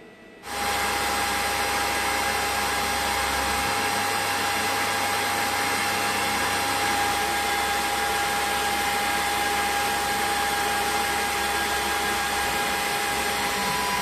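CNC milling machine spindle running while an end mill cuts pockets into a brass plate. It is a steady machining noise with a constant high whine, starting about half a second in.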